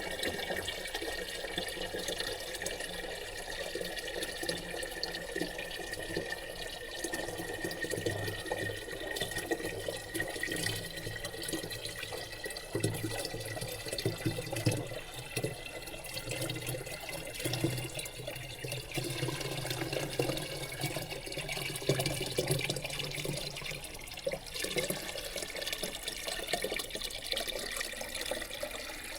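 Mountain spring water running steadily from a spout into a container being filled, with a faint ringing pitch that rises slowly as the container fills.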